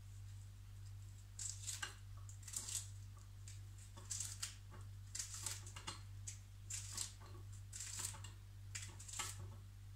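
Kitchen knife cutting small pieces off a hand-held cucumber, short cuts coming in pairs roughly once a second, over a steady low hum.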